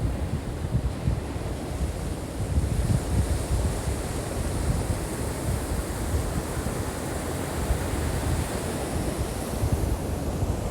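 Ocean surf washing on the beach, with wind buffeting the phone's microphone in a low, fluctuating rumble.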